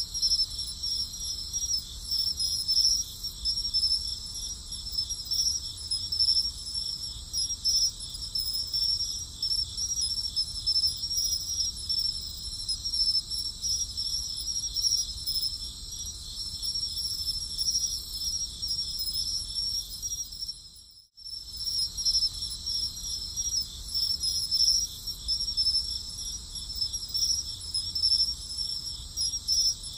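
A chorus of crickets chirping steadily: a high, finely pulsing trill with a low rumble underneath. It drops out for a moment about two-thirds of the way through and starts again, as a looped recording does.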